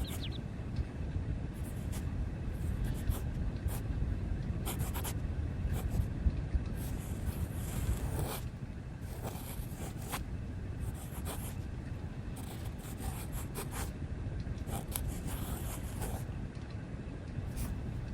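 Writing on paper: irregular scratchy strokes, one after another with short pauses, over a steady low background hum.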